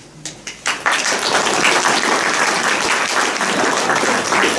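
Audience applauding, starting under a second in and keeping up steadily.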